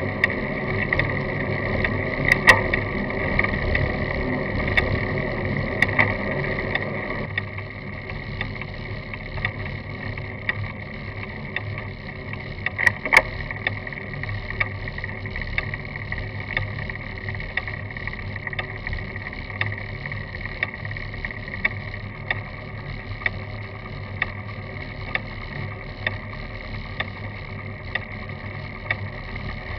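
Rolling noise of a bicycle on a bitumen road picked up by a camera mounted on the bike's frame, with frequent small clicks and rattles. A van following close behind adds an engine rumble for the first several seconds, which drops away about seven seconds in.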